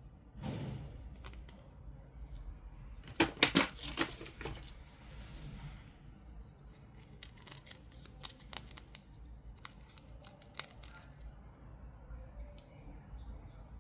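Toy packaging being opened and handled by hand: a soft swish, then a quick cluster of loud sharp snips and clicks about three seconds in, followed by scattered lighter clicks of plastic and cardboard.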